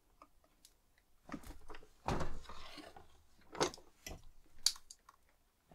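Scattered wooden knocks and clunks with some rustling as a plywood leather-moulding mould is squeezed under a hand-lever clicker press and pressed down. The loudest knock comes about two seconds in.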